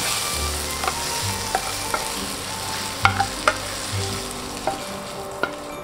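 Sautéed chicken, bell pepper and onion sizzling in a hot frying pan just after the heat is switched off, while a wooden spatula stirs and scrapes it out into a bowl with a string of sharp clicks and knocks. The sizzle thins toward the end.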